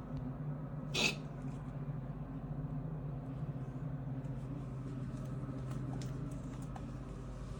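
A pet animal's single short cough about a second in, over a steady low hum, with a few faint ticks afterwards.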